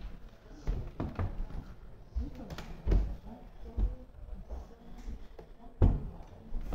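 Irregular knocks and thumps, the loudest about three seconds in and again near the end, with faint voices.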